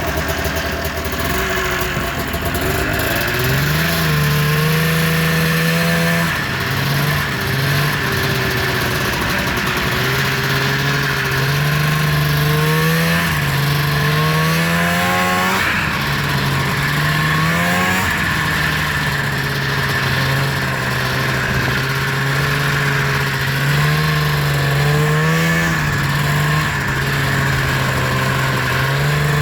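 Carbureted 500 cc two-stroke twin engine of a 2000 Arctic Cat ZL500 snowmobile running, revved up and dropping back to idle repeatedly.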